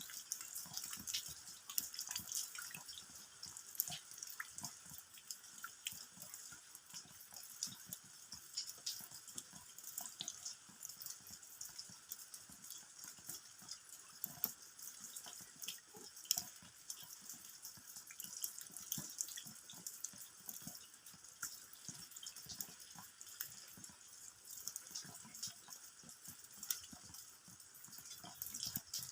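Rain falling steadily, with many separate drops ticking irregularly as they land on the ground.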